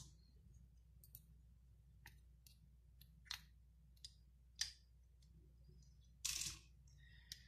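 Faint, scattered small clicks and scrapes of a metal pin working rubber gaskets out of the ports of a chrome pull-type shower diverter, with one short louder scrape a little after six seconds.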